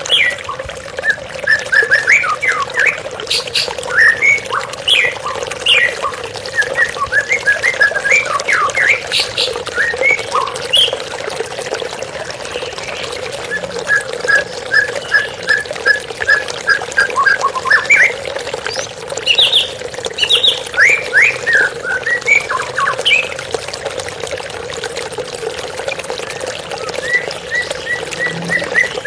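White-rumped shama (murai batu) singing a varied song of quick whistled notes that sweep up and down, with runs of rapid repeated notes mid-way and near the end. Steady flowing water runs underneath.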